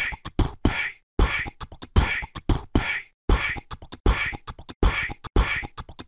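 Looping beatbox-style percussion: kick-like thumps and short hissing snare-like hits in a steady rhythm that repeats about once a second.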